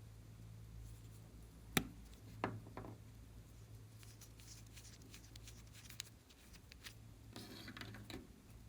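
Slime being handled and mixed by hand: a sharp sticky click a couple of seconds in, a few softer clicks and ticks, and a brief crackling rustle near the end, over a low steady hum.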